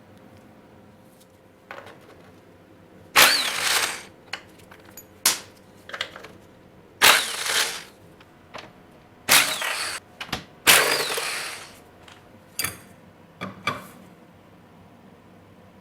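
Angle grinder run in short bursts, about five of them under a second long, with a faint falling whine in some, grinding off the welds that hold the chain tensioner to its shaft. A few shorter sharp metal knocks come near the end.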